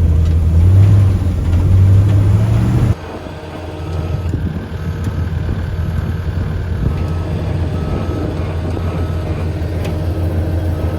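Heavy tracked machine's engine running loud, rising briefly in pitch about a second in. About three seconds in it cuts abruptly to a quieter engine running steadily, with a faint short beep repeating a little more than once a second.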